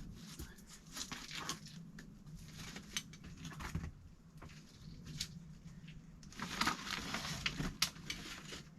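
A hiker's shoes and gear scuffing and rustling while climbing down wet rock: irregular scrapes, crunches and small knocks, busiest a little before the end.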